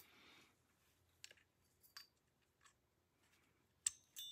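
Near silence broken by a few faint clicks of small parts being handled, then a sharper click and a short, ringing metallic clink near the end.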